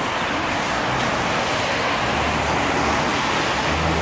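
Steady noise of city street traffic, with a vehicle's low engine hum coming in about halfway through.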